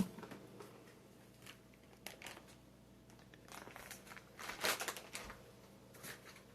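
Faint crinkling and light knocks of food packaging being handled in a kitchen, loudest about four and a half seconds in.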